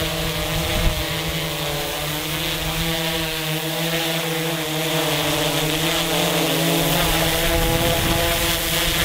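DJI Inspire quadcopter's propellers and motors humming in flight, the pitch wavering slightly up and down as the motors speed and slow to hold the drone steady against gusts. An uneven low rumble of wind buffets the microphone.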